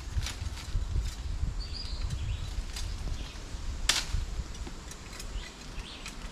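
Machete cutting and snapping sticks off a small tree: a run of sharp cracks and snaps, the loudest about four seconds in.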